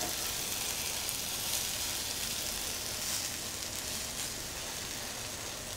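Coriander-masala fish fillets sizzling steadily in an oiled grill pan on the residual heat of a hob that has just been switched off.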